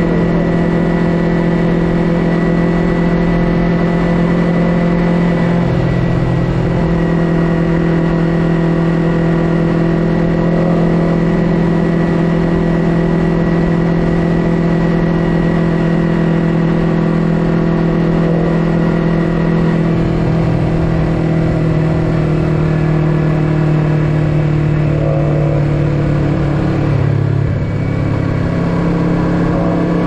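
Yamaha YZF-R3's 321 cc parallel-twin engine through an Akrapovic full-system exhaust, running steadily under way. Near the end the note drops as the bike slows.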